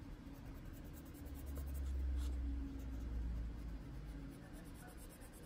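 Prismacolor coloured pencil shading on paper: a soft, steady scratching of the lead. A low rumble swells up about a second in and fades out a couple of seconds later.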